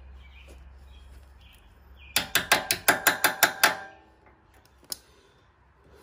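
Quick run of about nine sharp metallic clicks, roughly six a second, lasting a second and a half, then a single click about five seconds in: metal parts of a motorcycle footpeg adapter and its pin being worked into the footpeg mount.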